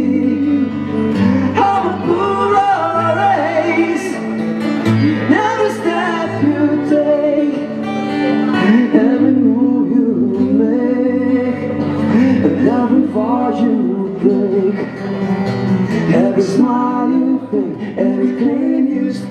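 Two men singing to a strummed acoustic guitar, a live acoustic song performance.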